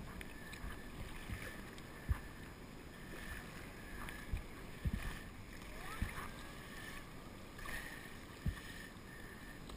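Water splashing and lapping against a paddleboard, with a few dull thumps at irregular intervals.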